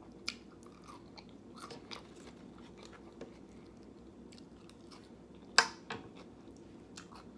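A person chewing food close to the microphone, with scattered small wet mouth clicks and smacks and one sharper click about five and a half seconds in.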